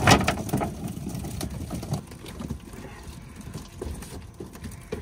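Live baitfish dumped from a cast net flopping and pattering on an aluminum boat deck, with a loud clatter right at the start as the net and fish drop down. The rapid tapping thins out after about two seconds into scattered flips over a low rumble.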